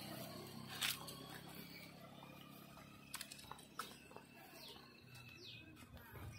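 Quiet open-air ambience: a motor scooter's engine fades away over the first few seconds, with a few scattered clicks. In the second half a bird gives short, falling chirps.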